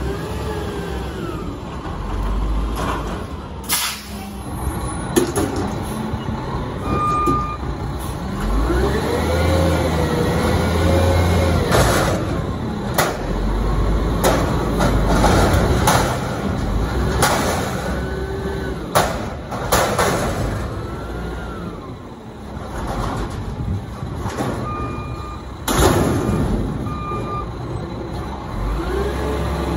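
White GMC WX64 garbage truck's engine revving up, holding and dropping back several times, with a few sudden hisses of air and metal clanks in between.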